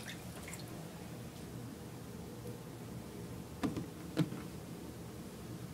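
A low steady room hum with two short knocks about half a second apart, a little past the middle.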